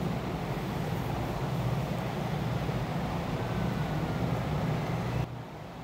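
Steady low rumbling background noise, with no speech, that drops away abruptly about five seconds in.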